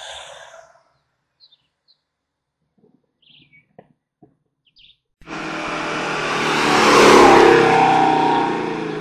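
Faint bird chirps, then about five seconds in a hill-climb race car's engine comes in suddenly, loud and at speed, swelling as the car passes and fading toward the end.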